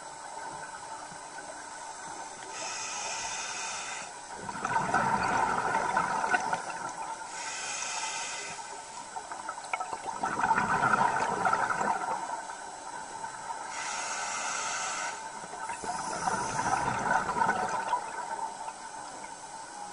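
Scuba diver breathing through a regulator underwater: a short hiss on each inhalation followed by a longer rush of exhaled bubbles, three breaths, each about every five to six seconds.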